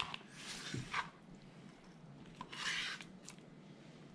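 Chef's knife slicing a raw redfish fillet into strips on a plastic cutting board: a few short, faint scraping strokes of the blade through the flesh, with a couple of light taps of the blade on the board.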